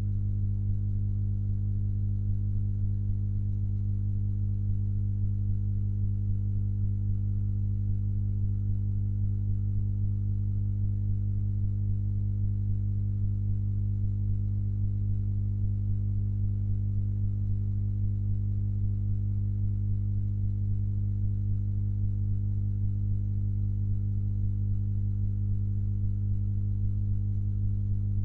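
Steady low electrical hum with a row of evenly spaced overtones, unchanging throughout.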